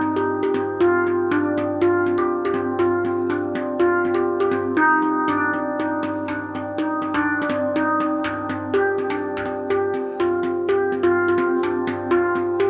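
Luna Nammu Silvermoon handpan played in a free improvisation: a steady pulse of hand-struck notes ringing into one another over a sustained low tone.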